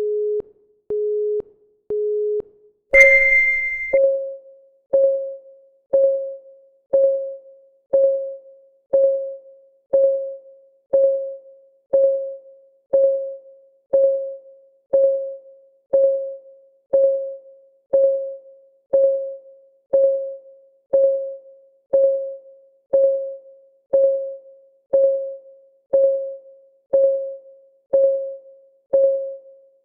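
Countdown timer sounds: three short, low beeps a second apart, then a louder, higher beep about three seconds in, followed by a steady clock tick once every second, each tick a short pitched tock that fades quickly.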